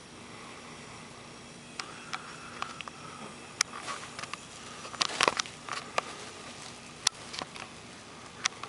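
Quiet room tone with a faint steady hum, broken from about two seconds in by scattered light clicks and taps, the loudest cluster about five seconds in.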